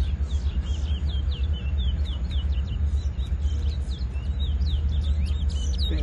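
Caged chestnut-bellied seed finches (towa towa) singing: a rapid run of short, falling whistled chirps, over a steady low rumble.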